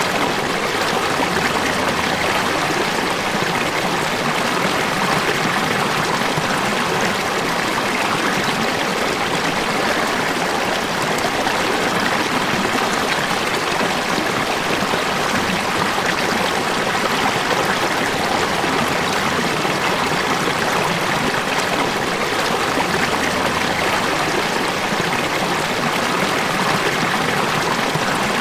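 Falling water rushing and splashing steadily, an even sound with no change in level.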